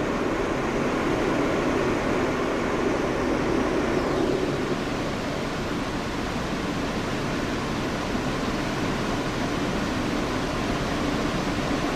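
Interior noise of an R160 subway car running in a tunnel: a steady rumble and hiss. About four seconds in the low rumble eases and a brief falling whine sounds as the train slows. Steady ventilation noise follows while the train is held for traffic ahead.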